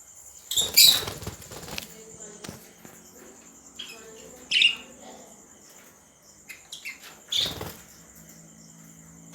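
Budgerigars fluttering their wings in a cage, in two loud flurries, one just after the start and one near the end, with a few short chirps between them, one a sharp falling call about halfway.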